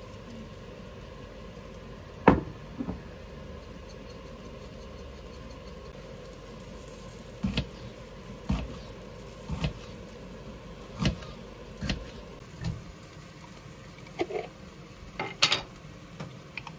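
A knife slicing a jalapeño on a cutting board: a knock of the blade on the board about once a second, after a single sharper knock about two seconds in. A steady hum runs underneath.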